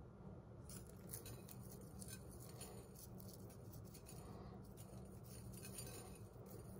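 Faint crunching and chewing as someone bites into and eats a toasted sandwich thin, with small crackly ticks scattered throughout, over a low steady hum.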